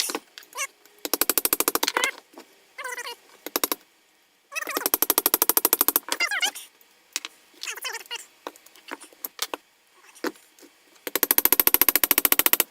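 Rapid metal-on-metal hammering at a seized, chewed-up nut on a 1965 Triumph TR6 fork stanchion, in three bursts of quick, even blows at about fifteen a second, with scattered clicks and ringing between the bursts. The nut is too rounded off for a spanner, so it is being driven loose.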